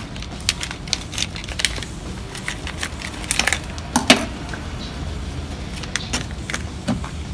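Crinkling and clicking of a plastic vinegar pouch being handled and torn open at the corner, with light knocks of plastic containers on a table; the sharpest click comes about four seconds in.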